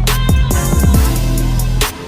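Background music with a hip hop style beat: kick drums with sliding bass and sharp snare or hi-hat hits.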